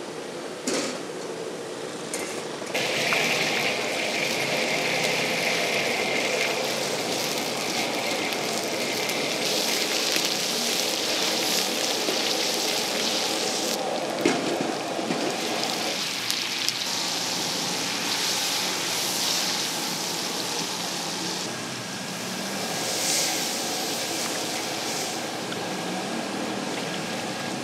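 Hot oil sizzling in a wok as minced garlic fries, starting about three seconds in and holding steady. A single sharp knock sounds about halfway through.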